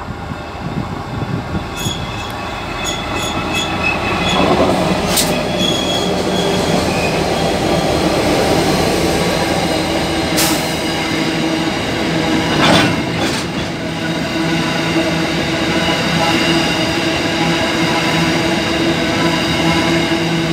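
Two Aurizon diesel locomotives pass at the head of an empty coal train, then a long line of empty coal hopper wagons rolls by with steady wheel noise. There is some wheel squeal and a few sharp clanks from the wagons.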